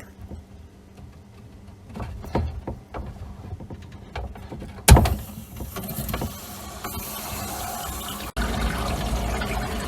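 Handling clicks and a sharp knock about five seconds in as the valves of an under-sink reverse osmosis system are opened, then water starting to flow through the filter lines as a steady hiss that continues to the end.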